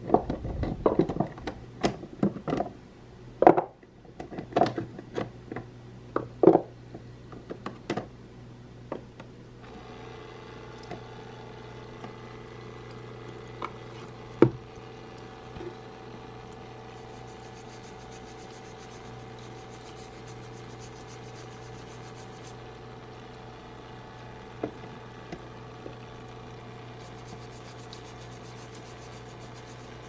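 Toy play sink: first a run of light knocks and clatters as carrots are handled in its plastic dish rack and basin, then about ten seconds in its small battery water pump starts with a steady hum and water trickles from the toy faucet into the basin.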